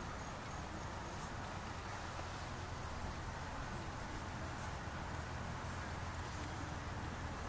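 Steady outdoor ambience: an even hiss with a low rumble, and over it a high, evenly repeated insect chirp, about three to four chirps a second.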